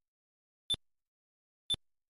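Short, sharp electronic blips, one a second, two in all: the time-lapse's month ticks, each blip marking another month passing on the counter.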